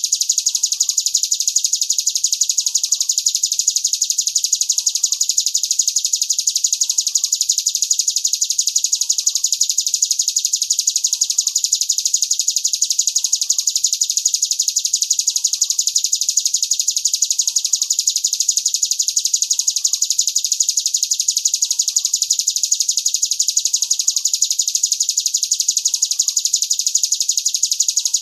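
Songbird recording for mastering: a continuous, very rapid high-pitched trill that runs on without a pause, with a faint short falling note about once a second beneath it.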